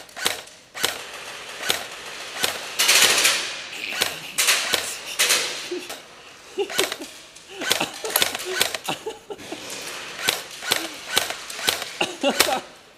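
Airsoft guns firing: sharp snapping shots, some single and some in quick bursts, with a dense stretch of rapid fire about three seconds in.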